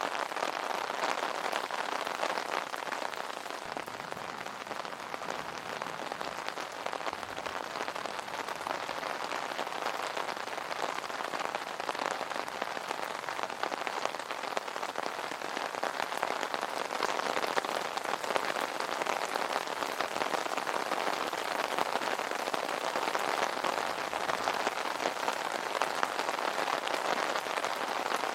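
Steady rain pattering on an umbrella, a dense even patter of drops that swells slightly at times.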